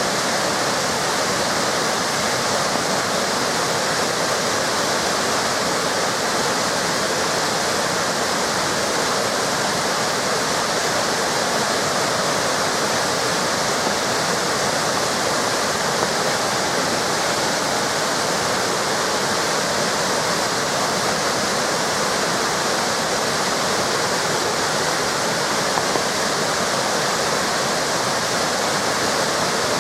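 Waterfall cascades of a mountain river pouring steadily, a constant rushing hiss of falling water with no breaks.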